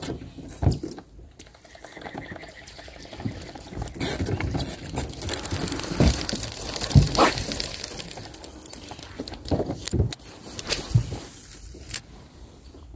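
Fishing tackle being handled aboard a jon boat: rustling reel and line noise from a baitcasting reel being worked, broken by a few short dull knocks.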